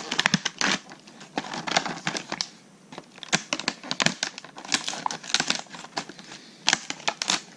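Scissors snipping through a stiff clear plastic blister pack, the plastic crinkling and crackling as it is cut, in several bursts of cutting with a short pause about three seconds in.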